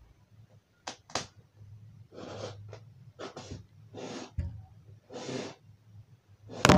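Woven polypropylene sack and yarn rustling and rasping as green yarn is pulled through the sack edge with an eye needle while binding a mat: a run of short hissing pulls about once a second, with two sharp clicks about a second in and a louder rasp at the end.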